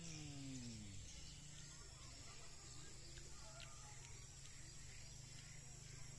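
Faint outdoor ambience with scattered faint bird chirps over a steady low drone. A short low hum falls in pitch in the first second.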